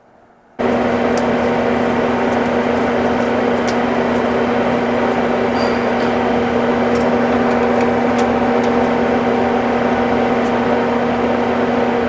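Steady machine hum with several steady tones, starting abruptly about half a second in and holding level, with a few faint ticks over it.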